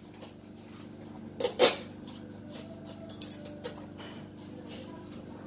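Steady low electrical hum from a switched-on Funke Gerber Nova Safety centrifuge idling while its lid-release countdown runs, with two short sharp noises about one and a half seconds in and a few faint clicks a little later.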